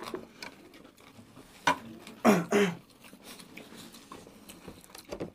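People eating at a table: chewing and wet mouth clicks, with scattered light knocks of spoons in bowls. A brief voice sound comes a little after two seconds in.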